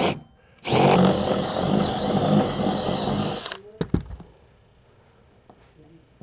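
Cordless drill, freshly recharged, boring a hole into the boat: a brief burst right at the start, then a steady run of about three seconds that stops suddenly, followed by a couple of knocks.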